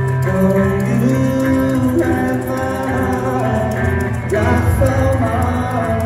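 Thai pop-rock band playing live: male voices sing held, sliding notes over electric guitar and a strong, steady bass line.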